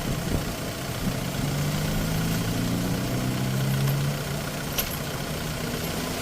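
Diesel engine of farm machinery running steadily. Its note strengthens about a second in and eases back about two-thirds of the way through, with a single sharp click near the end.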